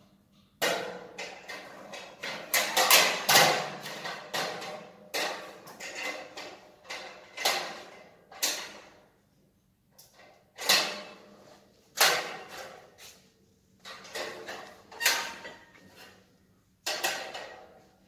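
Irregular metal knocks and clanks with short ringing, from work on a perforated steel cable tray overhead, coming in clusters with short pauses; the densest, loudest run is a few seconds in.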